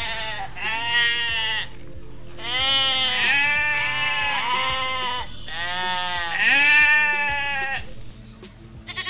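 Sheep bleating, one long call after another, about six in all, each rising and then falling in pitch.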